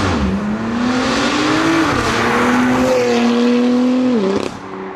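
BMW F80 M3's S55 twin-turbo inline-six, fitted with an Active Autowerke equal-length midpipe, accelerating hard: the pitch climbs, drops sharply at an upshift about two seconds in, climbs again, then falls to a steadier lower note a little after four seconds.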